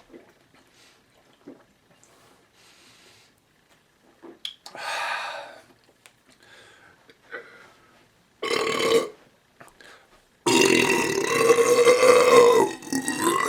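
A man belching from gulped carbonated malt liquor: a short belch about eight seconds in, then a long, loud, drawn-out belch from about ten seconds in, its pitch wavering.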